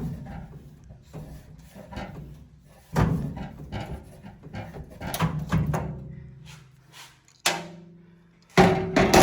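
Knocks and clanks from a steel Husky tool chest as a clamping tool is worked up and down to bend and break off a piece of a drawer's lock mechanism, the metal ringing briefly after each knock. There are about half a dozen knocks, the loudest two near the end.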